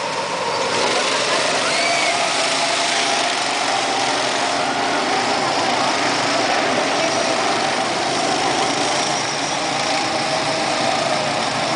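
Go-kart engines running as several karts circle the track: a steady, mingled engine drone with a faint tone that wavers slightly in pitch.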